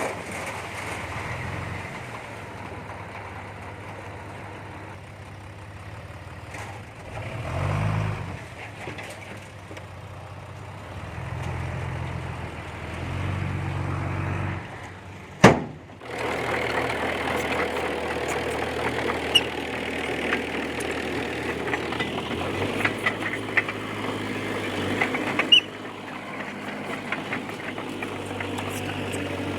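A small bulldozer's diesel engine running, its note swelling a few times under load in the first half. A single sharp click comes about halfway through, followed by noisier running with scattered metallic clinks.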